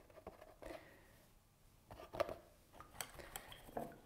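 Paintbrush working paint on a plastic palette: a few faint taps and scrapes, the sharpest about two seconds in.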